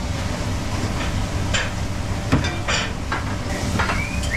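Commercial kitchen noise: the steady rumble and hiss of the extraction hood fans, with scattered clinks and clatters of utensils and plates, and a short squeak near the end.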